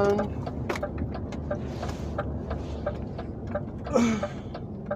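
Steady low rumble of an HGV's diesel engine and road noise inside the lorry's cab while driving. A light ticking sounds about four times a second.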